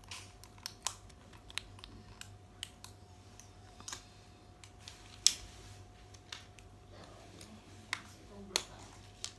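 Small plastic toy packaging and pieces being handled: scattered light clicks and rustles, about a dozen, with one sharper click about five seconds in.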